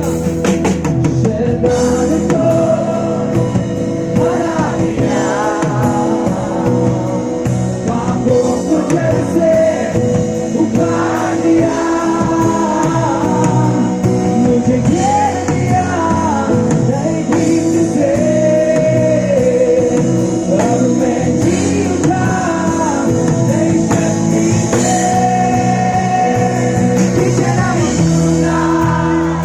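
A live band performing a Hindi Christian worship song: singing over full band accompaniment.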